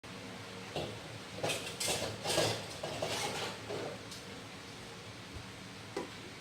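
Breadfruit pieces and crispy-fry flour being handled in a pot: irregular rustling and light clattering for about three seconds, then quieter.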